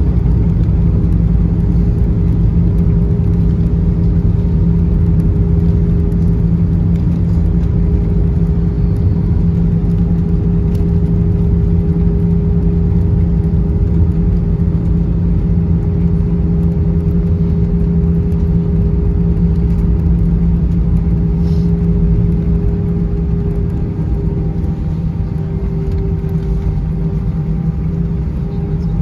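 Cabin noise of an Airbus A320 rolling out on the runway after landing: a loud, steady rumble with a steady hum, getting a little quieter in the last few seconds as the airliner slows.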